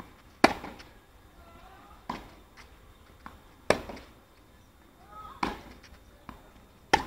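Tennis rally on a clay court: a tennis ball struck back and forth with rackets, five sharp hits about a second and a half apart, with fainter ball bounces between them.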